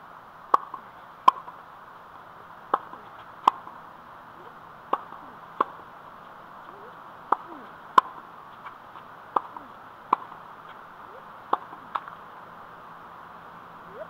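Tennis racket striking balls: a sharp pop every second or so, often in pairs about 0.7 s apart.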